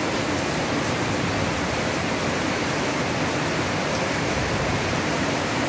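Heavy tropical rain pouring down in a steady, even downpour.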